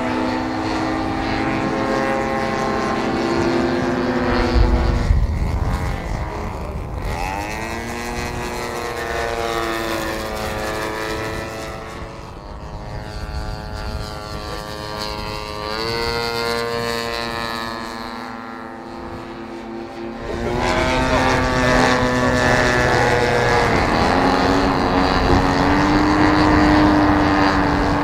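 Precedent Stampe radio-controlled model biplane's engine and propeller droning through fly-by passes, the pitch swooping up and down as it approaches and passes. It dips quieter around twenty seconds in, then comes back louder. A brief low thump comes about five seconds in.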